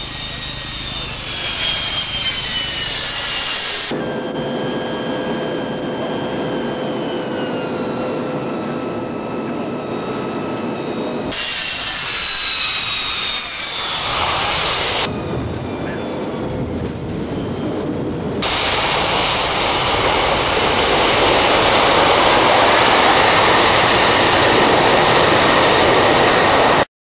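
Antonov An-74 twin turbofan jet passing low and landing on the ice: a high engine whine sliding down in pitch over a loud rush of jet noise, in several edited pieces that cut in and out. It ends in a long steady rush that stops abruptly.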